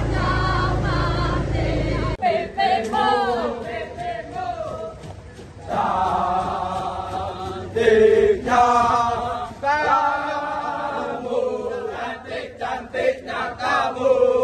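A group of runners chanting a jogging song together as they run in formation. For the first two seconds a low steady rumble lies under the voices, then stops abruptly.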